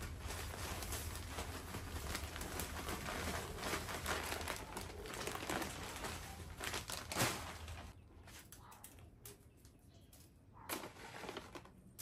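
Potting mix pouring out of a plastic bag into a metal tub, with the bag crinkling and rustling as it is tipped and shaken. There is a sharper rustle about seven seconds in, after which it goes quieter, with a few light taps.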